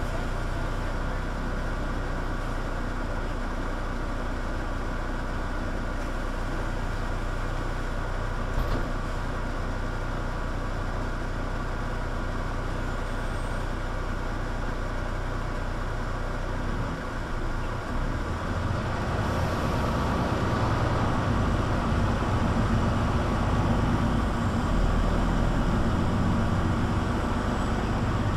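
Mercedes-Benz Citaro C2 G articulated bus running, a steady engine hum and rumble. From about two-thirds of the way in, it grows louder with a deeper rumble, as under acceleration. There is one short knock about a third of the way in.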